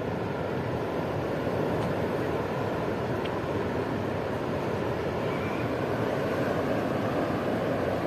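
Ocean surf breaking on the shore: a steady rushing noise with no distinct events.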